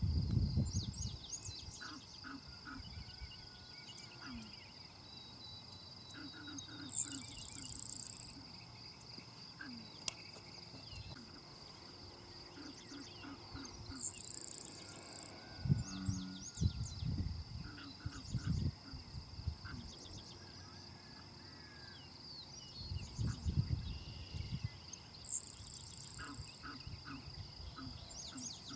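Outdoor ambience: a steady high-pitched insect drone, with scattered bird chirps. Three brief higher hisses come along the way, and a few low rumbles.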